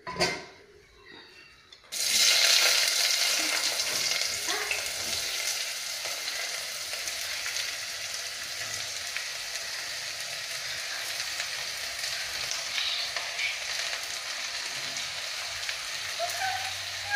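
Sliced onions dropped into hot coconut oil in a clay pot: a loud sizzle starts suddenly about two seconds in, then settles into a steady frying hiss.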